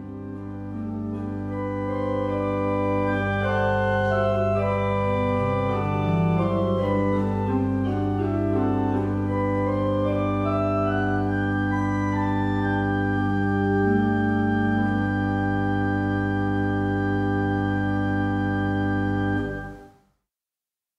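Baroque pipe organ, the 1762 instrument at Schönbach, playing a slow piece: a melody of held notes moves over a steady low pedal note. The music stops abruptly near the end.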